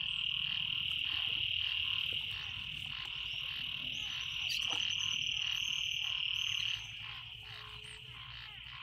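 Chorus of frogs in floodwater after heavy rain: a dense, steady high trill that weakens about two seconds in, comes back, and cuts out near the end, over lower pulsing croaks. Light splashes of water come through beneath it.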